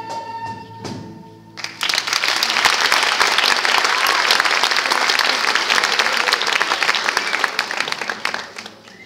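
A classical guitar ensemble's piece ends on a held note, then an audience claps for about seven seconds, the applause fading near the end.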